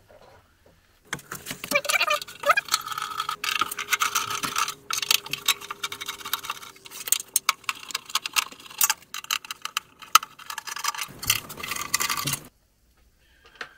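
Rummaging through tools for a screwdriver: a long run of small metallic clinks, clatters and rattles that starts about a second in and stops shortly before the end.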